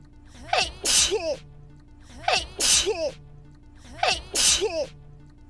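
The same sneeze repeated on a loop, three times about every 1.8 seconds, each copy identical. Each is a short high-pitched voiced 'hah' followed by a sharp noisy 'choo' with a squeaky voiced tail.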